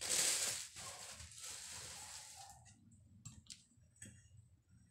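Plastic wrapping rustling and crinkling as it is pulled off a folding laptop table's tray. It is loudest at the start and fades out after about two and a half seconds, then come a few light clicks and taps as the tray is handled.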